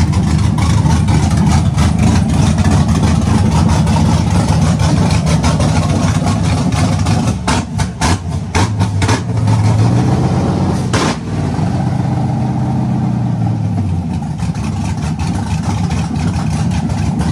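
A V8 truck engine running steadily close by, with a few sharp knocks a little after halfway and a brief rise in engine note about ten seconds in.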